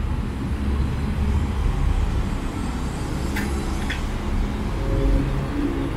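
Steady low rumble of city street traffic, with two short clicks about three and a half seconds in.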